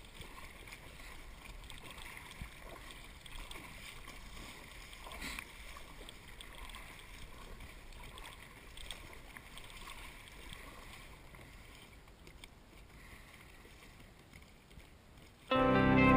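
Kayak paddle strokes and water lapping and splashing against the hull, faint and even with a few sharper splashes. Music starts abruptly near the end.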